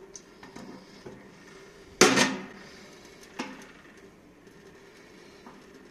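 A chrome tap's cartridge is being worked loose over a stainless steel sink. There is a loud metallic clatter about two seconds in, then a sharp click and light handling clicks as the cartridge is turned by hand.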